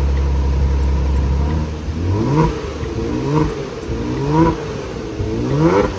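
2018 Kia Stinger GT's twin-turbo V6 through its stock exhaust, idling and then revved four times in quick blips, each rising and falling back to idle.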